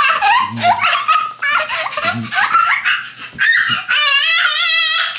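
A toddler laughing hard in short high bursts, ending in a long high, wavering squeal of laughter.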